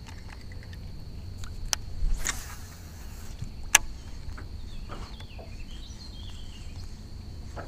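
Baitcasting reel during a cast: a click, a short whir of line paying out, then another click as the reel is engaged, over a low steady wind rumble on the microphone.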